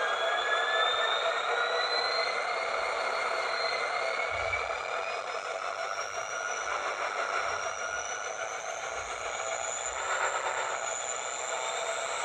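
Model locomotive sound decoder playing a diesel locomotive's engine sound through a small speaker: a steady running hum with a thin whine that rises slowly in pitch throughout.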